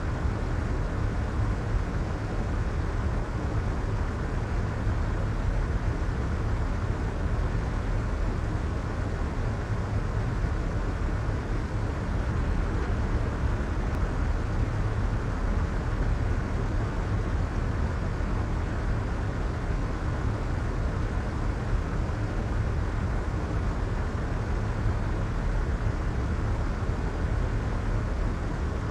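Steady soft white noise, weighted toward a deep low rumble with the treble rolled off, unchanging throughout.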